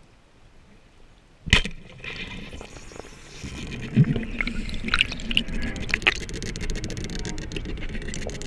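Band-powered speargun fired underwater: one sharp, loud crack about one and a half seconds in. It is followed by rushing water and a clatter of clicks and knocks from the spear and line as the speared wahoo runs.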